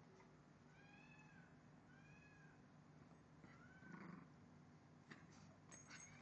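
A small dog whining: three faint, high, arching whines, each rising and falling in pitch, followed by a short noisy snuffle and a few light clicks near the end.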